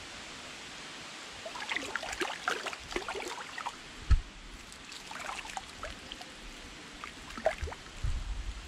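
Thick muddy water sloshing and gurgling in several short spells as legs shift through it in a mud ditch, with a dull low thump about four seconds in.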